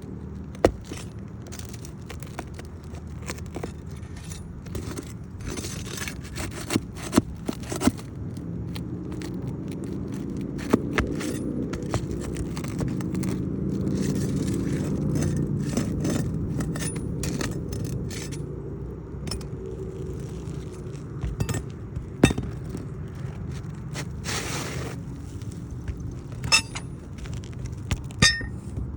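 A steel flat bar and hammer working asphalt roof shingles: scraping and prying to break the shingles' seal strip, with irregular sharp taps and clicks and a longer scrape near the end. Under it a low engine drone swells and fades about halfway through.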